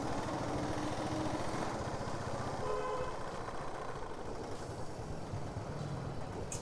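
Motorcycle engine running steadily, with a faint, level tone from the surrounding traffic near the start and again about three seconds in.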